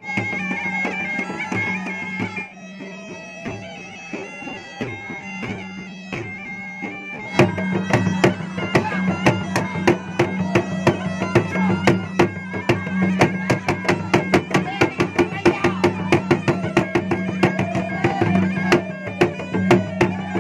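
Makassar gendang drum music: a reedy pipe, the Makassar puik-puik, plays a wailing melody over a steady drone. About seven seconds in, the gendang barrel drums come in, struck with a stick and the bare hand in fast, dense strokes under the pipe.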